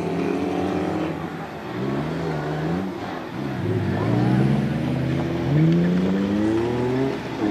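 Two off-road rally 4x4s revving hard and accelerating away from a start line, the engine pitch climbing and then dropping back several times as they shift gears.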